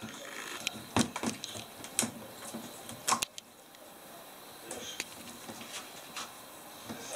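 Cabinet door clicking and knocking against its frame in irregular taps as a Sphynx kitten paws and pulls at it, trying to get it open; the sharpest knocks come about a second in and again about three seconds in.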